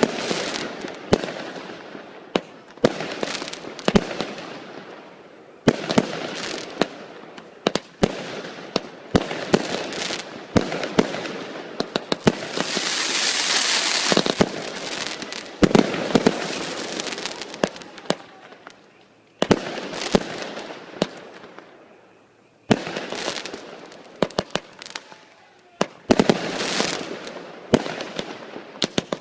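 Fireworks show: shells fired from a fireworks battery, bursting in rapid clusters of sharp bangs, each with a short rolling echo. About twelve seconds in comes a few seconds of dense hissing crackle, and there are brief lulls near the twentieth and twenty-second seconds.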